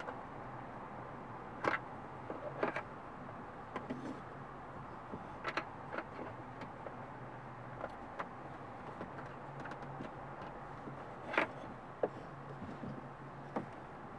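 Hard plastic phone dock and console trim knocking and clicking as the dock is worked by hand into the console opening. A handful of sharp, separate clicks and knocks come over a steady faint hum, the loudest a little past the two-second mark and again about eleven seconds in.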